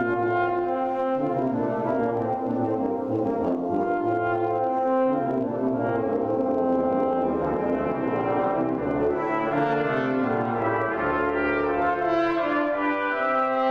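Brass quintet of two trumpets, French horn, trombone and tuba playing a hymn arrangement in held chords, with the tuba's bass line moving beneath.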